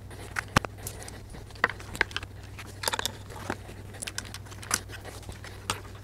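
Scattered small clicks and rattles of hands handling motorcycle handlebar parts: the switch housing, plastic handguard and control cables, at irregular moments. A steady low hum runs underneath.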